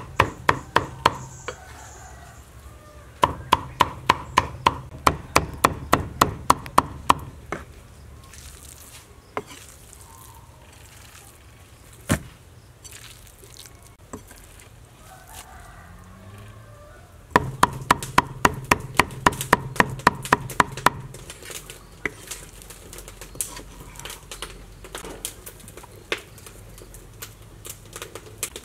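Cleaver chopping raw pork on a round wooden chopping block, mincing it in fast runs of about four or five strokes a second, with pauses between the runs.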